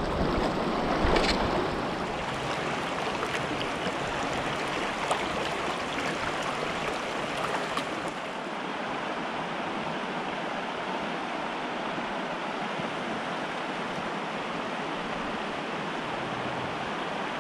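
A shallow mountain stream running over rocks, a steady rushing of water, with a splash about a second in. The rushing gets slightly quieter and duller after about eight seconds.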